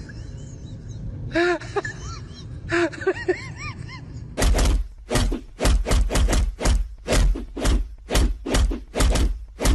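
A few short squeaks that rise and fall, then, a little over four seconds in, a rapid series of loud thuds or knocks, about two to three a second.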